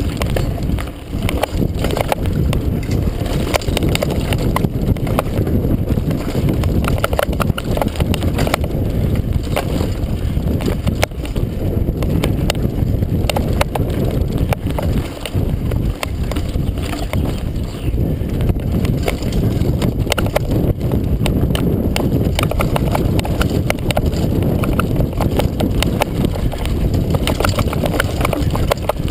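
Mountain bike descending a rough dirt forest trail at speed: a loud, steady rumble from the tyres and frame, with constant rattling, clicks and knocks as the bike hits roots and bumps.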